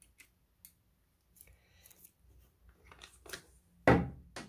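Handling of a plastic tablet oscilloscope: a few light clicks and rubbing, then a loud knock about four seconds in, followed closely by a smaller one.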